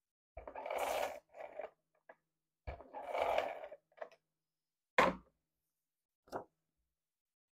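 Hand-held tape runner rolled twice along a paper strip, each pass a short rasping run of under a second. Then a sharp knock about five seconds in and a lighter tap a little later.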